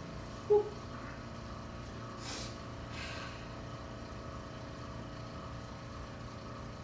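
Steady low mechanical hum, with a brief sharp pitched sound about half a second in and faint breathy hisses a little after two and three seconds.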